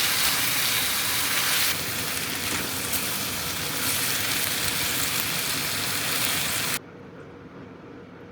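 Food sizzling in a frying pan, a loud steady hiss that eases slightly about two seconds in and cuts off abruptly near the end.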